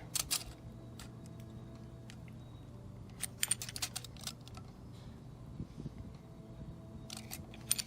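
Light clicks and taps of a padlock and a measuring tool being handled, scattered, with clusters about three to four seconds in and again near the end.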